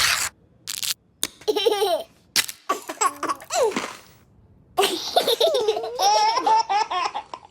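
High-pitched laughter in several bursts, the pitch sliding and wavering up and down like a baby's or small child's squealing laugh.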